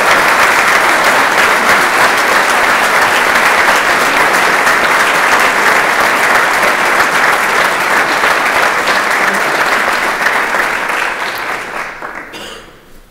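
Audience applauding, steady and loud, tapering off in the last couple of seconds.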